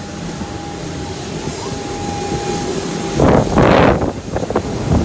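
Steady hum of an airliner cabin with a thin steady tone. About three seconds in, strong gusts of wind buffet the microphone in loud rough surges, fading and returning near the end.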